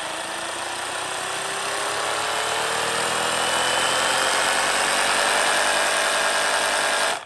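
Bosch GBH18V-26 cordless brushless SDS-plus rotary hammer running with no load. Its pitch climbs slowly and it grows louder as the trigger is squeezed further, then it stops abruptly near the end when the trigger is released.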